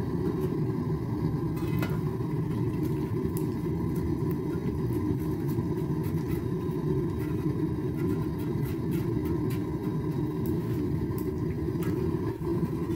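Propane forge burner running with a steady rumble, with faint scattered ticks and crackles over it.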